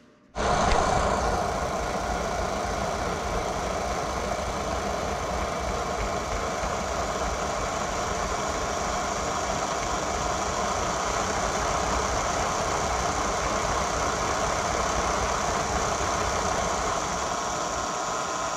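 O scale model diesel locomotive running in place on test rollers, a steady mechanical running noise that starts about a third of a second in and holds even.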